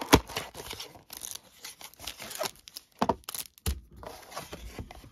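Cardboard Topps baseball card hanger box being torn open by hand: irregular tearing and scraping of the paperboard, with a sharp snap just after the start and another burst of tearing about three seconds in.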